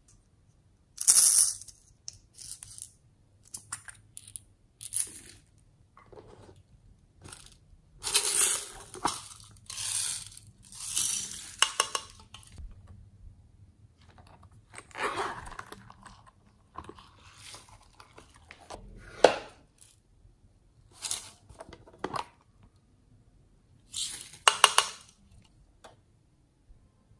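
Small plastic containers of slime toppings (sprinkles, foam beads, glitter) being handled and emptied into a glass tray of slime: irregular bursts of handling noise, some short and sharp, with quiet gaps between.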